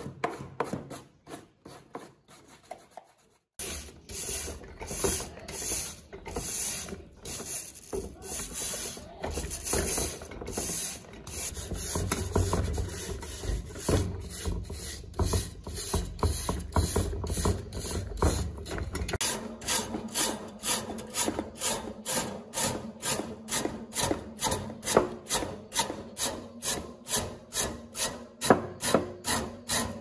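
Hand brush scrubbing a rusty table fan's wire guard and housing in rhythmic back-and-forth strokes. The strokes quicken about two-thirds of the way in.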